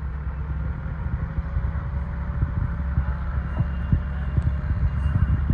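Compact farm tractor's engine running steadily with a low rumble as it pulls a trailer along a grassy track.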